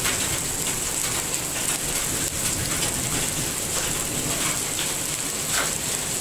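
Rain mixed with grape-sized hail falling, a steady hiss with scattered sharp ticks of hailstones striking.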